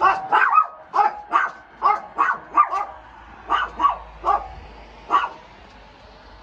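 Small dog barking rapidly in sharp, high yaps: about a dozen in quick succession over the first three seconds, then a few more spaced out, stopping a little after five seconds in.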